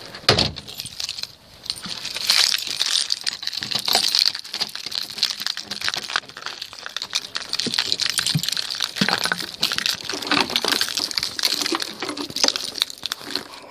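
Handling noise from the recording device: steady rustling packed with many small clicks and clinks.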